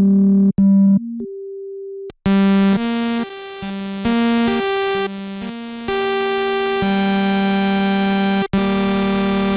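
FL Studio's 3xOsc synthesizer playing through a single oscillator. A plain tone sounds for the first two seconds, then bright saw-wave notes follow one after another, changing pitch about every half second, with longer held notes from about seven seconds in and a brief break near the end.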